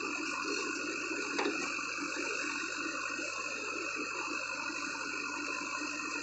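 JCB 3DX backhoe loader's diesel engine and hydraulics running steadily as the boom swings back from loading a tractor trolley, with a single knock about a second and a half in.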